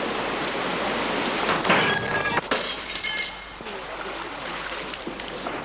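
Water splashing and churning as a mountain bike rider and his bike go into a river, with a few shouts from onlookers about two to three seconds in.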